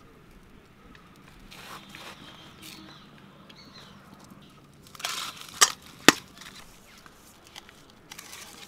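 Dry firewood twigs snapping: a rustling crackle about five seconds in, then two sharp cracks half a second apart.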